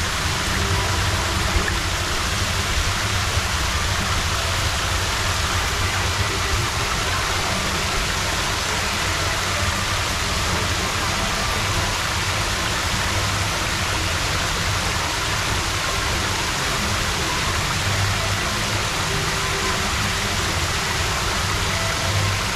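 Steady rush and splash of fountain jets pouring into the pool at the ride's central hub, with a low rumble underneath.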